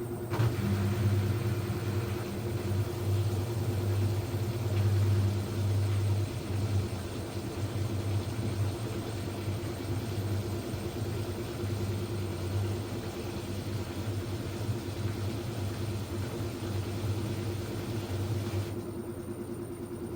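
LG F1292MD front-loading washing machine in its spin cycle, the drum running with a steady low hum and rumble, recorded for a squeak it makes on spin. A rush of higher noise comes in just after the start and falls away near the end.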